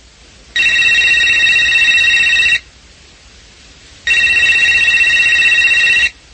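Telephone ringing with an incoming call: two rings of about two seconds each, a fast high trill, with a pause of about a second and a half between them.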